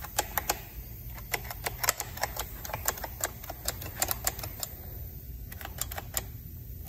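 Quick, irregular clicking, about four clicks a second, as the throttle control and carburetor throttle linkage of a Stihl FC95 4-Mix edger are worked by hand to check that they move freely after reassembly. The clicking thins out and stops about six seconds in.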